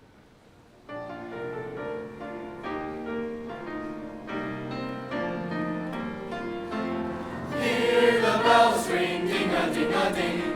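A choir song begins. After a short hush, a musical introduction of held, changing notes starts about a second in, and the choir's voices come in louder about three-quarters of the way through.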